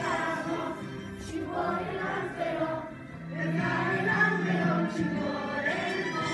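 Music with a group of voices singing together as a choir.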